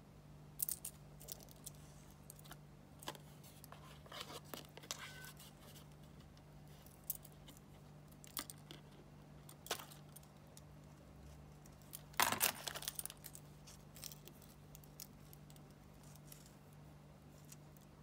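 Small metal and pearl hair clips and jewellery clinking and tapping as they are handled and set down, in scattered sharp clicks with a louder cluster of clinks about twelve seconds in. A steady low hum runs underneath.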